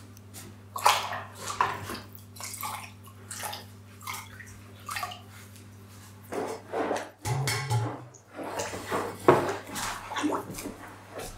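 Liquid splashing and sloshing in a bucket in irregular bursts, over a steady low hum that stops about seven seconds in.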